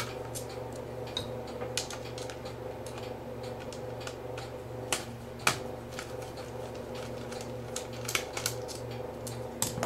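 Small screwdriver clicking and scraping as it backs out tiny screws from a camcorder's plastic LCD housing: scattered light clicks, with a couple of sharper clicks about halfway through, over a steady low hum.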